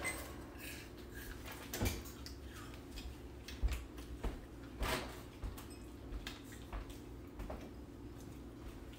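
Quiet mealtime sounds: scattered light clicks and taps of spoons and chopsticks against bowls and dishes, over a steady low hum.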